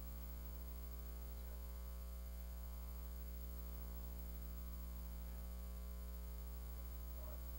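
Steady electrical mains hum, a low buzz with a ladder of evenly spaced overtones.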